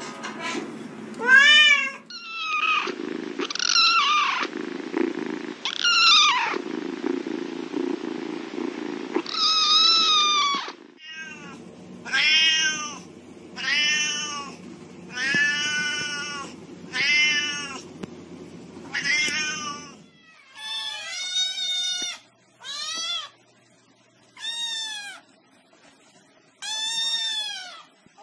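Cats meowing over and over, one cat after another, each meow a rising-and-falling call. In the middle stretch a Siamese cat meows about once a second over a steady low hum; near the end the meows come with short quiet gaps between them.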